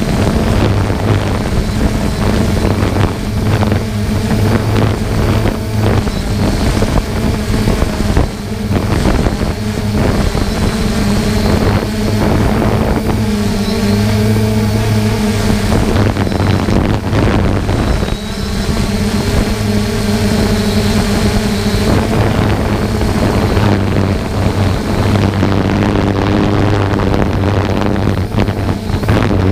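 Camera drone's electric motors and propellers humming steadily in flight: a low hum with a faint high whine, shifting a little in pitch now and then, with wind buffeting the microphone.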